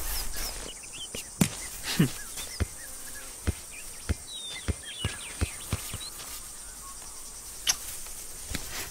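A football being kept in the air off a player's head and body: a run of soft thuds about every half second, dying away after about six seconds, with one more near the end. Birds chirp faintly in the background.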